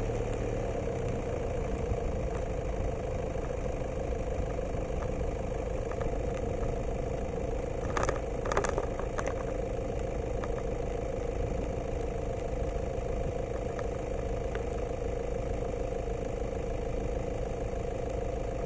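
Steady motor hum holding one constant pitch, with a few short clicks about eight seconds in.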